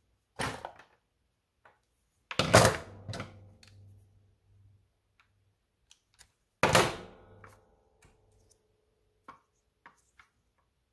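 Handheld wire stripper/crimper working on a wire: a few sharp metal clacks, each with a brief ring, the loudest a couple of seconds in and another after about seven seconds, then a few light clicks near the end.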